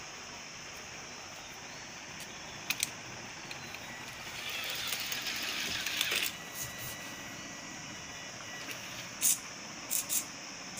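Small plastic DC gear motors of a hobby robot car running, louder and whirring for about two seconds in the middle, with a few sharp clicks near the end.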